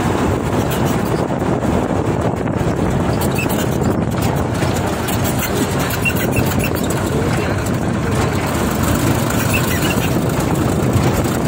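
Sonalika DI 35 tractor's diesel engine running steadily while the tractor drives along the road, heard up close from on board the tractor.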